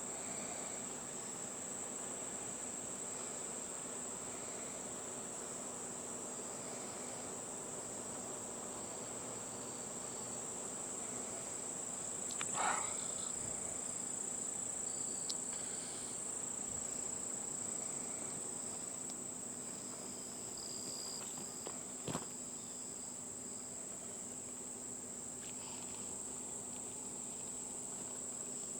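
Steady, high-pitched insect chorus, an even unbroken drone. About 12 to 13 seconds in, a short louder call wavers up and down over it, and a sharp click sounds about 22 seconds in.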